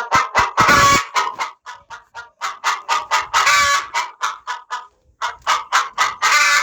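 Recorded chicken clucking played as a ringtone: a run of short, quick clucks, several a second, with a brief break about five seconds in.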